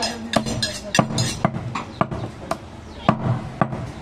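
Large butcher's knife chopping goat meat down onto a wooden chopping block: about seven sharp knocks, roughly one every half second.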